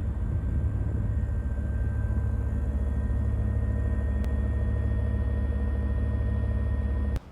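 Heavy engine running steadily: a deep rumble with a few steady whining tones above it, cutting off suddenly near the end.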